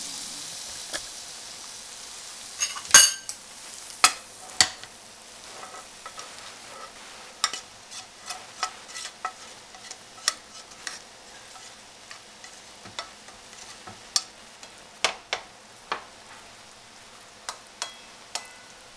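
A spoon scrapes cooked tuna and egg out of a non-stick frying pan onto a ceramic plate, with many sharp clicks and knocks of the utensil against the pan and the plate. The loudest knocks come about three and four seconds in. A faint frying hiss from the hot pan fades out over the first couple of seconds.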